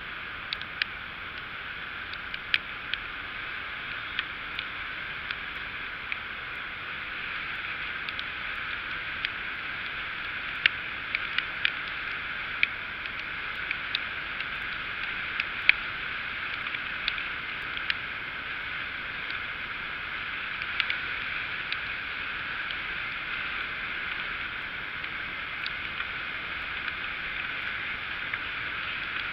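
Steady rushing noise of a Hercules MX1 moped being ridden on a wet road in the rain, sounding muffled, with many scattered sharp ticks of raindrops hitting the camera.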